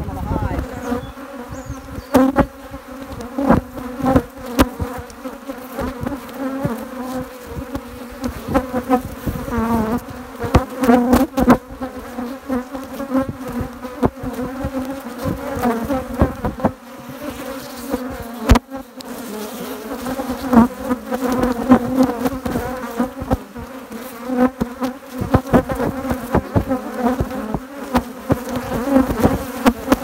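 Honeybees from an open hive buzzing, a steady hum. Frequent short clicks and knocks run over it.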